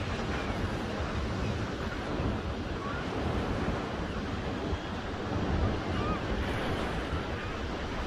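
Ocean surf breaking and washing up a sandy beach in a steady, surging wash, with wind on the microphone. A few faint, short bird calls rise above it here and there.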